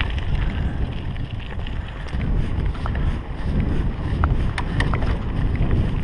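Wind rumbling on a GoPro action camera's microphone as a mountain bike rolls along a dirt trail, with a few light clicks and rattles from the bike.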